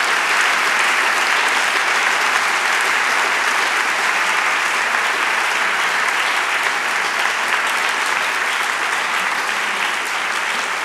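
Audience applauding steadily, sustained clapping from a large crowd.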